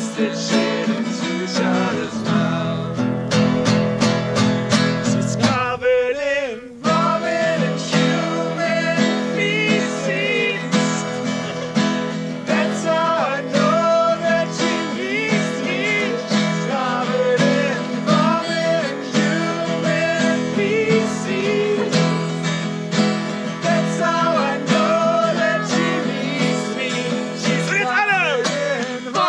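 Acoustic guitar strummed in a steady rhythm with a voice singing along. The strumming breaks off briefly about six seconds in, then carries on.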